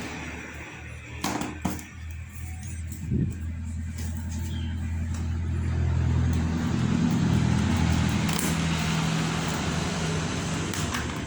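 A few sharp clicks from the package being handled in the first few seconds, then a low, steady engine hum that swells from about four seconds in and holds.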